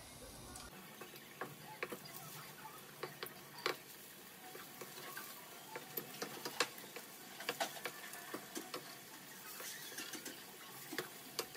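French toast frying in a nonstick pan: a faint steady sizzle with irregular sharp clicks and taps as the slices are turned over in the pan.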